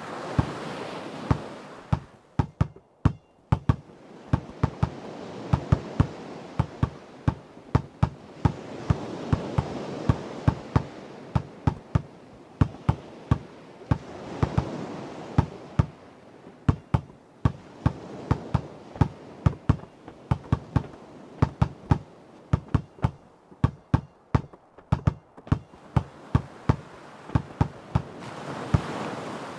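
Basketball being dribbled on hard ground: sharp bounces about one to two a second, often in quick pairs. Ocean waves swell and fade behind them.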